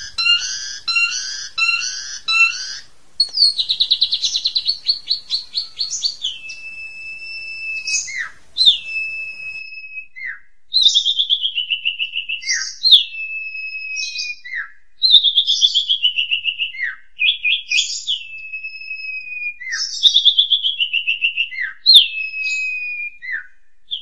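Asian pied starling (jalak suren) singing. It opens with a fast repeated note pattern for about three seconds, then repeats one phrase about every two seconds: a quick rattling trill that glides down into a held whistle, with short falling notes between the phrases.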